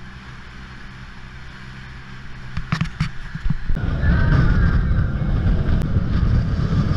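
Boat's outboard motors humming low and steady, a few sharp knocks near three seconds, then from just before four seconds a loud, steady rush of wind and water as the boat runs at speed.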